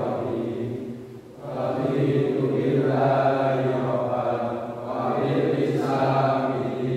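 A class of students reciting a prayer aloud together in unison, a steady chant that drops briefly about a second in and again near the five-second mark.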